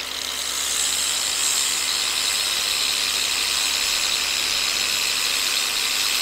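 Angle grinder with a 200-grit diamond polishing pad running steadily against the sawn edge of a natural-stone windowsill, grinding the cut face smooth: a high-pitched whine over a gritty hiss.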